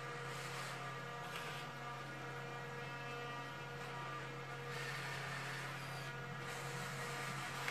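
Steady electrical hum with several faint steady whine tones, from a powered InMoov robot's servos and electronics. Soft swells of hissy whirring come in about half a second in, again around five seconds in, and near the end.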